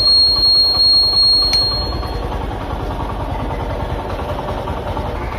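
Motorcycle turn-indicator buzzer sounding a steady high tone while the right indicator is on, with a faint click about once a second, then cutting off about two seconds in. The motorcycle's engine idles underneath throughout.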